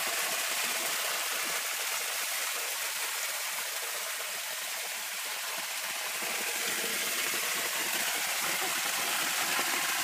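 Small waterfall spilling over rocks into a shallow pool: a steady rush and splash of falling water, a little softer midway and fuller again near the end.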